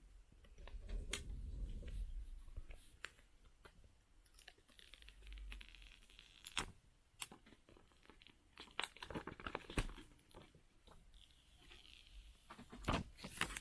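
Protective plastic film being peeled off a new iPhone SE 2020: faint crackling and tearing with scattered small clicks and some handling bumps.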